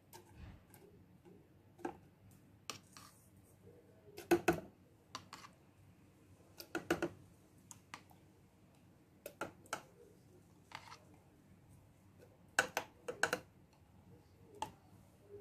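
Light clicks and knocks in short, scattered clusters as thick yogurt is spooned and poured from its container into a glass blender jar, with utensil and container tapping against the jar.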